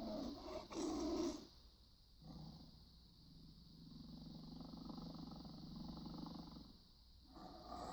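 Big-cat roaring and growling sound effects for a saber-toothed tiger: two short roars in the first second and a half, then a long low growl lasting about four seconds, then another roar starting near the end.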